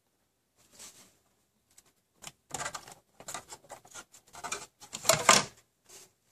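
Plastic air shroud being lifted out of a Dell PowerEdge R520 server chassis: a quick run of irregular clicks, rattles and scrapes of plastic on metal, starting about two seconds in and loudest near five seconds.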